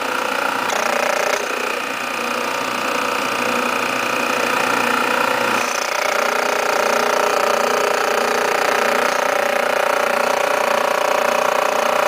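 Robinair refrigerant recovery machine running in recover mode, its compressor and cooling fan making a steady hum with several tones. The tone shifts slightly about halfway through as a valve knob is turned.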